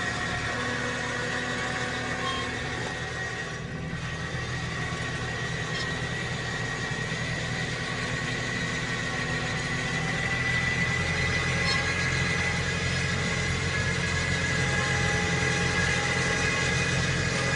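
Tractor engine running steadily under load, pulling a plastic-mulch-laying bed former through soil, with a steady high-pitched whine over the engine. It gets a little louder about ten seconds in.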